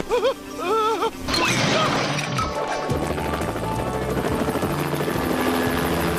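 Background music with a loud, steady rushing sound effect that comes in about a second in and runs on over the music.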